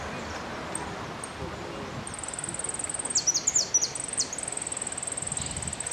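Jilguero (finch) singing: a few faint high chirps, then from about two seconds in a fast, very high trill broken by several quick downward-swooping notes.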